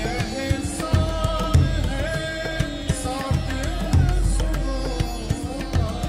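Indian-style music: a melody with gliding notes over repeated drum strokes.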